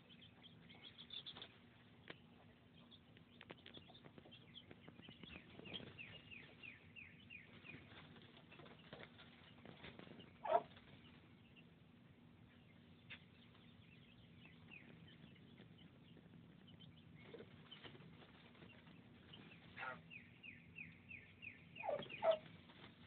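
Young chicks peeping: faint runs of short, high, falling chirps repeated in quick series, with gaps between. A couple of louder short knocks, one about halfway and one near the end.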